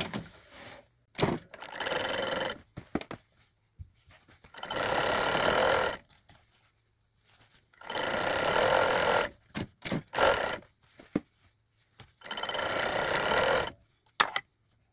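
Juki industrial cover stitch machine with a servo motor stitching a stretch-fabric hem in short runs: three main runs of about a second and a half each, plus two shorter ones. The servo motor is silent between runs, running only while the pedal is down. Small clicks and handling noises fill the gaps.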